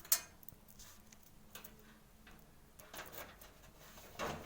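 Faint scattered clicks and light rustling of small plastic front-panel connector leads being handled, with a sharper click just after the start and a brief louder rustle near the end.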